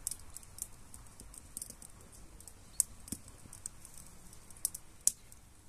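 Fire crackling in the grill beneath a fish smoker: irregular small ticks and pops, with two louder pops about three and five seconds in.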